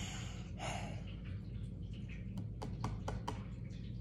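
A woman with hiccups breathing: two soft breaths in the first second, then a quick run of about five soft clicks near the end, over a steady low hum. No audible hiccup stands out.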